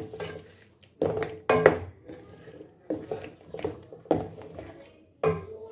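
Wooden spoon stirring chicken pieces in a thick masala in a metal pan, scraping and knocking against the pan in irregular strokes about once a second.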